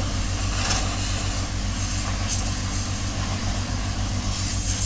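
Pressure-washer lance spraying in short hissing bursts over a steady, low, pulsing mechanical rumble.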